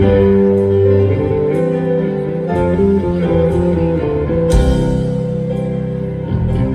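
Live rock band playing a slow song: sustained guitar and keyboard chords over drums, with light hits about once a second and a cymbal crash about four and a half seconds in. It is heard loud through a phone microphone in the crowd.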